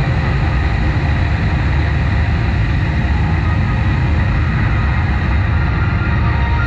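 A loud, steady deep rumble from the laser show's soundtrack on the sound system, a rocket-launch effect.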